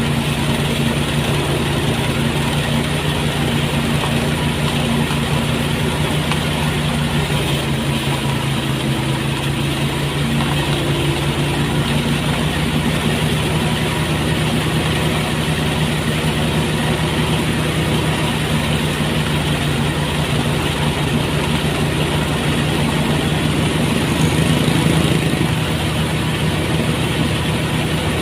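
Engine-driven rice threshing machine running steadily at a constant speed, with a slight swell in level near the end.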